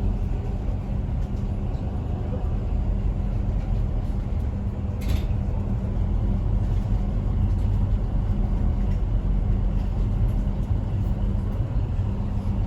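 Uber Boat river ferry's engines running with a steady low drone, heard on board, with one brief sharp click about five seconds in.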